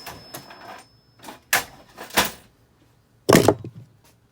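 Short bursts of rustling and scraping handling noise from gloved hands working a C-clip into a two-stroke piston's wrist-pin bore. The loudest comes a little after three seconds in.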